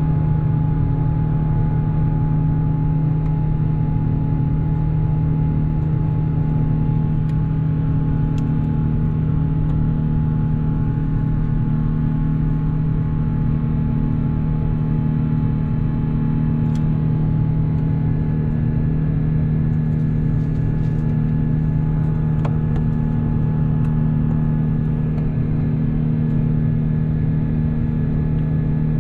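Steady cabin drone of an Airbus A350 in flight, from its Rolls-Royce Trent XWB engines and the airflow over the fuselage, heard inside the cabin. A deep hum carries a faint steady whine above it, and a second faint whine joins partway through.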